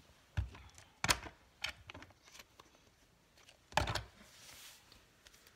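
Handling noise of a glue bottle and small craft supplies being picked up and set down on a table: a few scattered clicks and knocks, the two sharpest about a second in and just under four seconds in.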